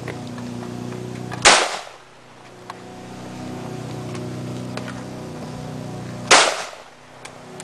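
Two single shots from an AK-pattern semi-automatic rifle, about five seconds apart, each a sharp crack followed by a short echo.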